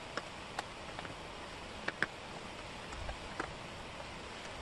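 Wooden jigsaw puzzle pieces clicking and tapping as they are handled and fitted on a cork board: about half a dozen small, irregular clicks, the loudest about two seconds in, over a steady faint hiss.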